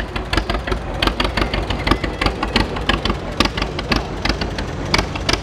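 Vintage John Deere two-cylinder tractor engine running as it drives by, its exhaust making a steady train of sharp pops, several a second.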